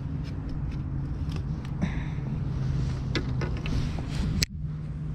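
Steady low rumble with light clicks and rustles of hands handling a small plastic fishing accessory, and one sharp click about four and a half seconds in.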